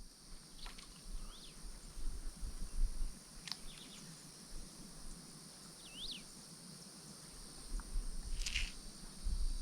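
Faint outdoor ambience: a steady high insect drone, with a bird giving short arched chirps and a few sharp calls. There is a low rumble in the background about two seconds in and again near the end.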